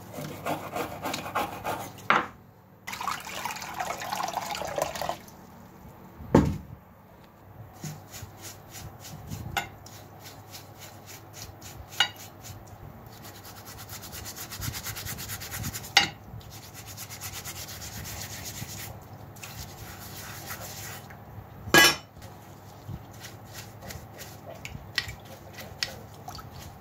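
A small hand brush scrubbing the rotted wooden handle of an old masonry trowel: a dense, rasping rub for about five seconds. Then quieter brushing and sloshing as the steel blade is scrubbed in a dish of water, with four sharp knocks along the way.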